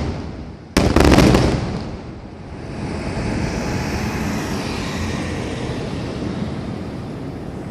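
Aerial fireworks finale: one last loud salvo of shell bursts with crackling about a second in, its rumble fading over the next second or so into a steady wash of noise.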